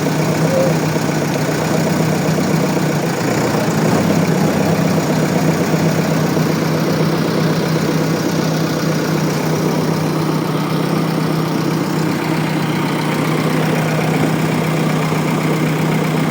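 Backhoe loader's diesel engine running steadily at an even pitch.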